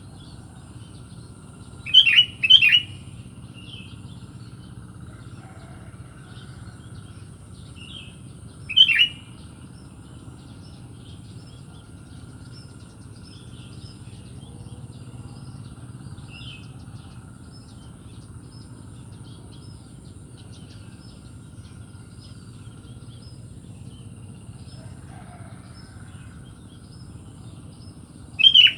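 Sooty-headed bulbul (kutilang) giving short loud calls: two about two seconds in, one around nine seconds, and another near the end. Between them is a faint continuous twittering of small birds over a steady high-pitched hum.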